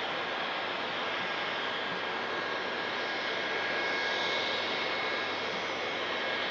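Steady jet engine noise: a continuous rush with a faint high whine.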